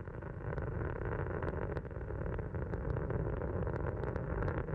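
Space Shuttle Atlantis's solid rocket boosters and three main engines during ascent: a steady, dense rumble with a continuous crackle. The main engines are at 104% thrust, just before the throttle-down for max Q.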